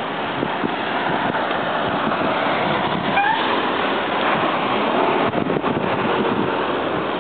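Wind and riding noise rushing over the microphone of a camera carried on a moving bicycle, a steady noisy rush, with a brief rising squeak about three seconds in.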